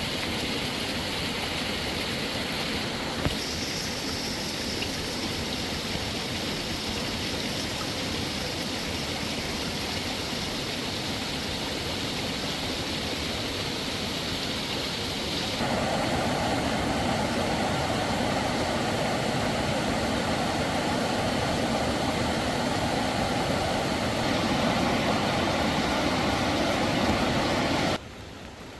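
Rushing stream water, a steady noise that shifts abruptly about three seconds in and again about halfway, where it becomes louder and deeper, then drops away sharply near the end.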